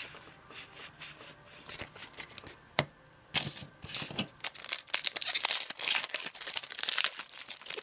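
Handling of trading cards and a foil booster-pack wrapper: a few light clicks, then about three seconds in a dense, rapid crinkling and rustling that carries on.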